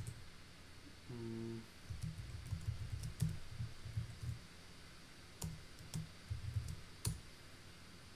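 Typing on a computer keyboard: irregular key clicks with a few sharper key strikes, and a brief hum about a second in.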